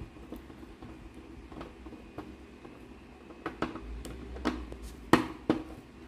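Screwdriver clicking and scraping on the metal body of a dental solenoid valve as the piston-cover screws are undone: a few light ticks, then a cluster of sharper clicks in the second half, the loudest about five seconds in.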